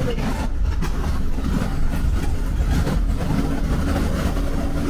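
Bus driving along a highway: a steady low drone of engine and road rumble, with a constant hum underneath.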